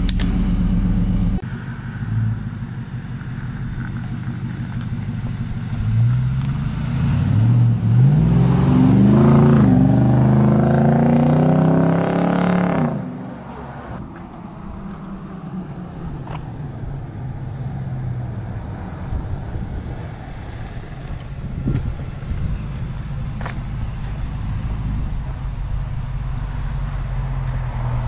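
Nissan Y62 Patrol's V8 running through a Pacemaker exhaust with only a centre muffler and the secondary cats deleted. It idles at first. About six seconds in the engine accelerates, its note rising and loud for several seconds. Near the halfway point it drops back to a steadier, quieter running sound.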